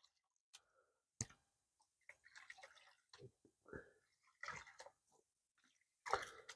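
Faint water sloshing and dripping from a gold pan of paydirt being dipped and washed in a tub of water. There is a sharp click about a second in and a louder splash near the end.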